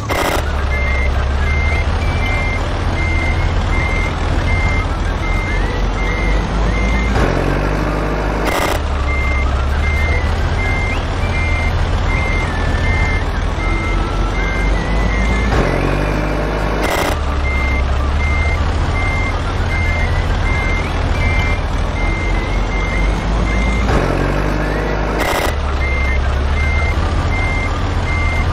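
Truck reversing sound: an engine rumbling low with a reversing alarm beeping steadily, the same stretch repeating about every eight seconds with a short break in the beeping each time.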